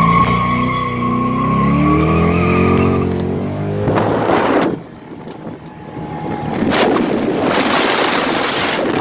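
Car engine revving under acceleration, its pitch sliding up and down, with a steady whine over it. About four seconds in and again from about seven and a half seconds come loud bursts of hiss from the tyres.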